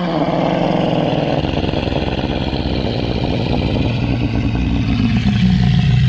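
Anatosaurus (duck-billed hadrosaur) sound effect: one long, low, rough call, its pitch dropping lower near the end.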